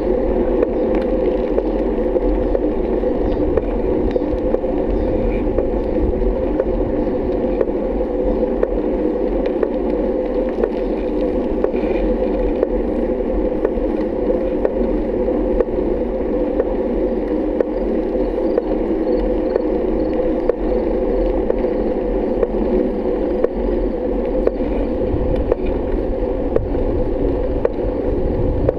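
Steady muffled rumble of a bicycle rolling along asphalt, with wind and road vibration picked up by a camera mounted on the bike.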